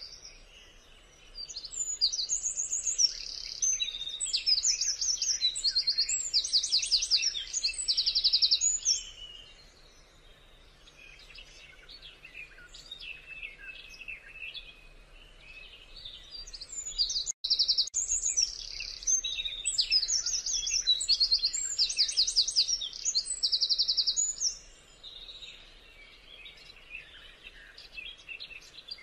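Birds singing: one songbird gives long runs of rapid, repeated high trills in two bouts, starting about a second and a half in and again about halfway through, over quieter chirps from other birds.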